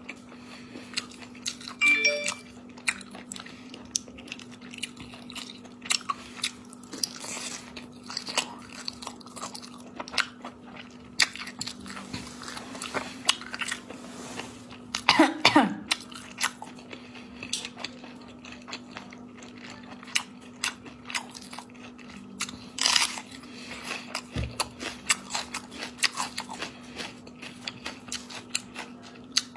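Close-up eating sounds: spicy snails being crunched and chewed, with many sharp clicks from the hard shells. A louder throat sound, like a short cough, comes about halfway through.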